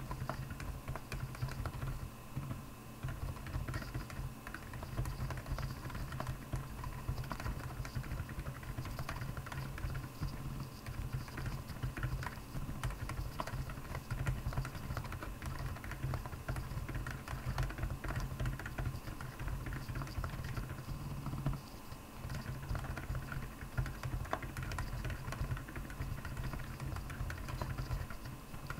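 Continuous fast typing on a Royal Kludge R75 mechanical keyboard fitted with Akko Penguin silent tactile switches, the keystrokes coming in a dense, uneven stream.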